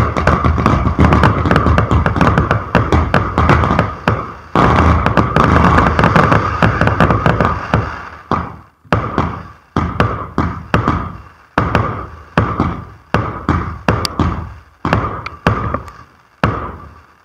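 Fireworks batteries (cakes) firing: a dense, rapid volley of bangs for the first eight seconds or so, then thinning out to single shots with short gaps, each bang sharp with a fading tail.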